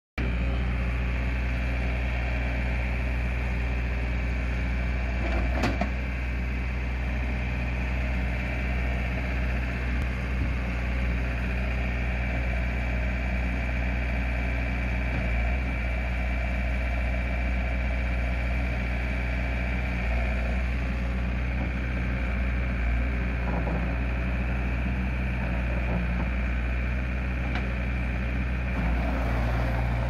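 John Deere 317 skid steer loader's 2.4-litre four-cylinder turbo diesel running steadily while the machine drives and works its loader arms and bucket. A steady high whine sits over the engine until about two-thirds through, and there is one sharp clank about six seconds in.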